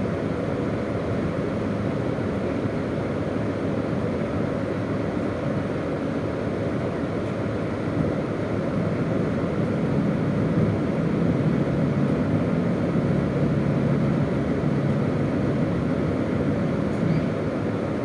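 Cabin noise of a KiHa 201 series diesel railcar under way: a steady rumble of wheels on the rail mixed with the diesel engine's drone. The low drone grows stronger about ten seconds in and eases off again near the end.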